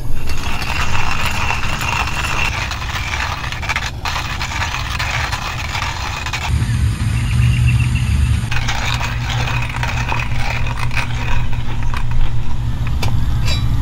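Hand coffee grinder being cranked, its burrs crunching and scraping through coffee beans. The grinding stops for about two seconds midway, then resumes. A steady low rumble runs underneath.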